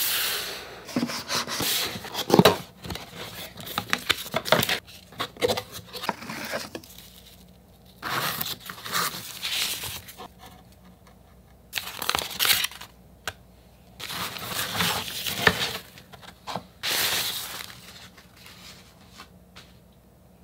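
Camera packaging being unboxed by hand: a cardboard box and its wrapping rustling, crinkling and tearing in irregular bursts, with sharp clicks and knocks of handling. The sound is busiest in the first few seconds and dies down near the end.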